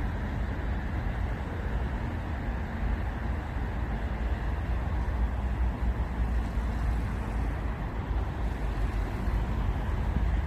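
Winter wind gusting through dry reeds, with a steady hiss and a fluctuating low rumble of wind buffeting the microphone.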